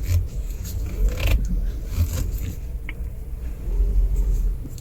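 Volkswagen Ameo running with a low, steady rumble and a few faint clicks and knocks. No steering creak is heard: the turning noise is quiet after a temporary repair of the torn, stiffened suspension mount.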